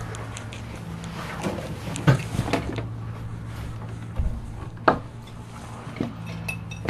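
A window being shut and handled: a series of separate knocks and clicks of wood and latch over a few seconds, over a steady low hum.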